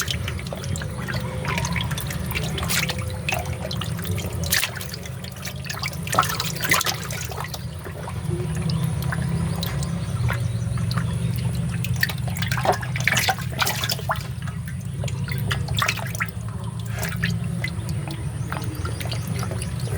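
Water dripping and splashing into a fish pond: a steady low rush of falling water with many irregular drips and small splashes.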